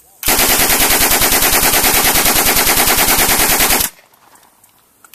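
Sterling 9mm submachine gun firing one long full-auto burst of rapid, evenly spaced shots, lasting about three and a half seconds and stopping abruptly.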